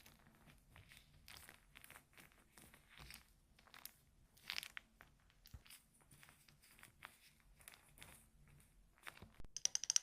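Faint ASMR sounds: scattered soft crinkling and crunching, with a louder rustle about halfway and a quick run of clicks near the end.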